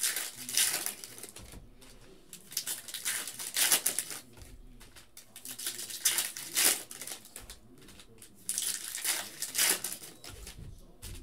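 Foil wrappers of trading card packs crinkling and tearing as they are ripped open and handled, in irregular bursts of rustling.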